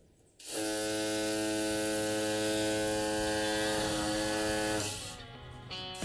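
Handheld cordless power tool running steadily at full speed against ceiling plaster for about four seconds, then easing off and starting up again near the end.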